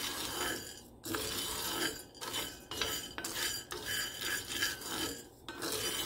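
Wooden spatula stirring coffee beans as they roast in a small cast iron skillet: the beans rattle and scrape against the iron in repeated strokes with short pauses between them.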